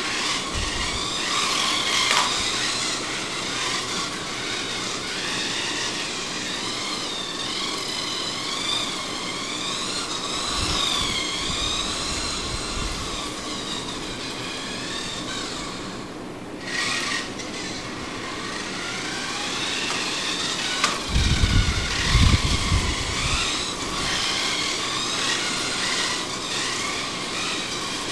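Small electric motors of Radio Shack XMods 1:28-scale RC cars racing, a high whine whose pitch keeps rising and falling with the throttle. A few loud low thumps come a little after three-quarters through.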